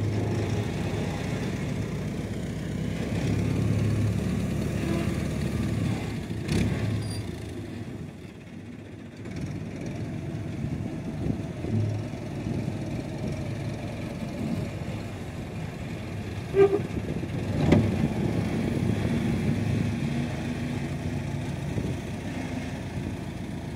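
Front-loader tractor engine running under load as the bucket pushes and spreads a pile of soil. The engine drops lower for a moment about eight seconds in, and two sharp knocks come about a second apart near seventeen seconds in.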